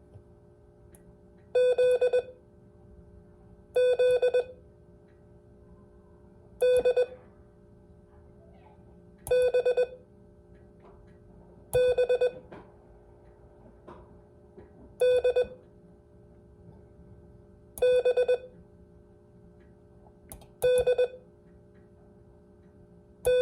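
Morse code sidetone from a CW radio keyed with a paddle: a steady mid-pitched tone sent as one short letter of dots and dashes every two to three seconds, nine letters in all. These are the practice letters B, D, O and Z, spaced out so they can be copied down.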